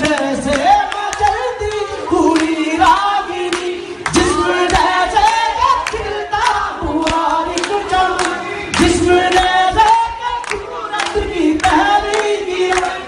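Man singing a Hindi-Urdu love song unaccompanied into a handheld microphone, with a crowd of voices singing along.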